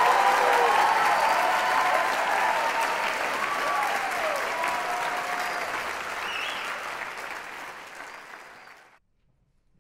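Audience applauding after a performance. The applause fades gradually and cuts off abruptly about nine seconds in.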